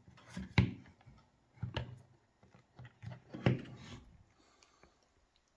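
Camcorder being handled and switched on: a few sharp clicks and knocks as fingers work its controls, loudest about half a second in, again near two seconds and about three and a half seconds in.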